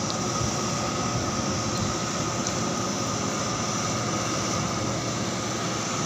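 Ship's deck crane machinery running with a steady drone and a thin, constant whine.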